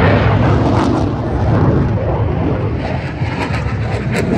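Several fighter jets flying overhead: a steady jet-engine rumble, heaviest in the low end, with a few sharp clicks near the end.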